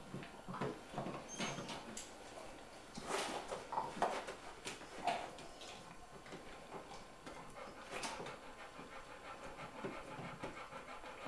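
Golden retriever gnawing a chew bone, with irregular clicks and scrapes of teeth on the bone, while a second golden retriever pants.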